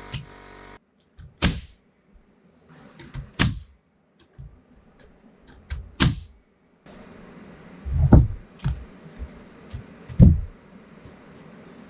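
A series of separate sharp knocks, three spaced a couple of seconds apart, then two heavier, deeper thumps near the end.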